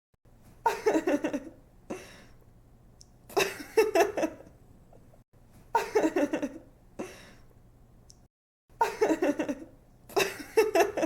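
A young woman's giggling laugh, heard four times about three seconds apart: each is a burst of quick ha-ha pulses falling in pitch, trailing off into a softer breathy tail.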